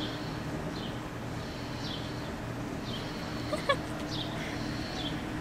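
A small bird chirping outdoors: short, high, falling chirps about once a second over a steady low hum. A brief, sharper call cuts in about three and a half seconds in and is the loudest moment.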